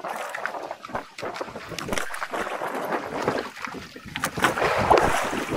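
Water splashing and lapping against a small fishing boat, with many short knocks and clicks from the hand-hauled fishing line and gear, the splashing loudest near the end.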